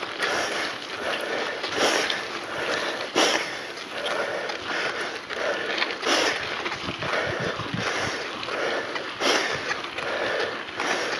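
Scott mountain bike ridden over a rough dirt track: a steady rough noise of tyres on dirt and the bike rattling, with about five sharp knocks as it hits bumps.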